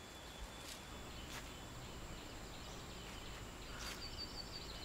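Faint outdoor woodland ambience: a low steady background hiss with a thin, steady high tone, a few soft clicks, and a brief high bird chirp about four seconds in.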